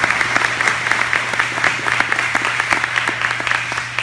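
Audience applauding, a dense patter of clapping that begins to thin out near the end.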